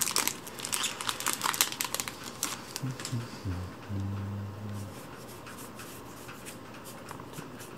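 A foil booster-pack wrapper crinkling and crackling as it is torn open and handled, thinning out after about two and a half seconds. A few short, low, steady hummed tones follow about three to five seconds in.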